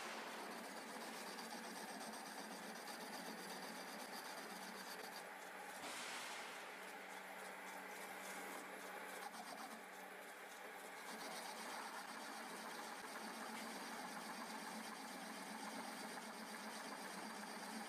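Centre lathe running steadily with a steady hum while a single-point tool takes a plain turning cut along a spinning mild steel bar.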